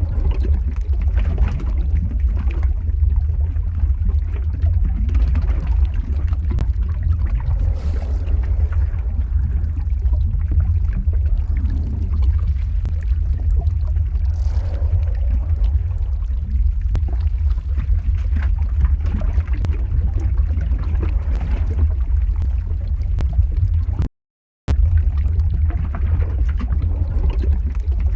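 Lava flow ambience sound effect: a steady low rumble with scattered crackles over it. It cuts out completely for about half a second a few seconds before the end, then resumes.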